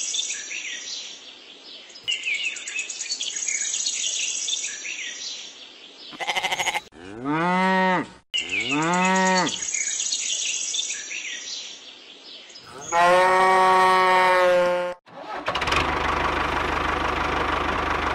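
Cattle mooing: two rising-and-falling calls about seven and nine seconds in and a longer, steadier call around thirteen seconds, with birds chirping between them. Music starts near the end.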